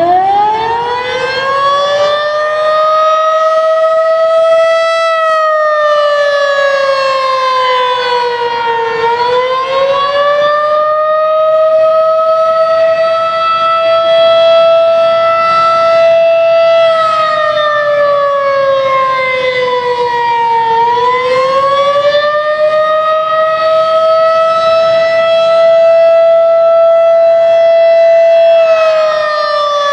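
Federal Signal 2001-SRN rotating outdoor warning siren sounding loud and close, finishing its climb to full pitch in the first few seconds. The tone then holds high, sags and climbs back, twice, about every twelve seconds, and starts to drop again near the end.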